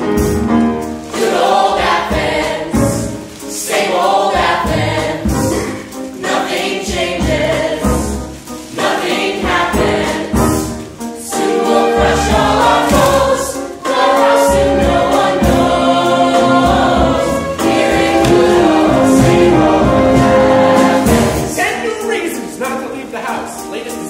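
A musical-theatre ensemble chorus singing together with a small pit band accompanying, growing louder past the middle and easing off near the end.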